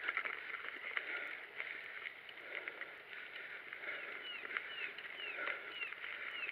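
Mountain bike rolling along a gravel and dirt trail: steady tyre and riding noise with frequent sharp rattles and knocks as the bike goes over bumps. A series of short falling chirps comes through about midway.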